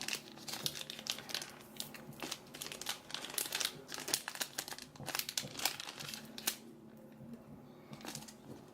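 Trading card booster pack wrapper crinkling as it is handled and the cards are worked out of it, a run of short crackles that pauses briefly near the end.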